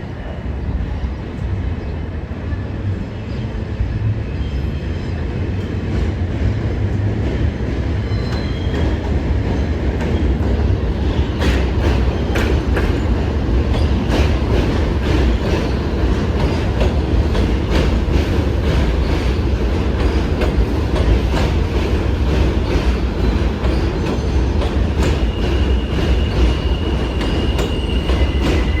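R160A subway car running along the track, heard from inside the car: a steady low rumble with rapid clicking from the wheels over rail joints that becomes dense about a third of the way in. A high, steady wheel squeal comes in near the end.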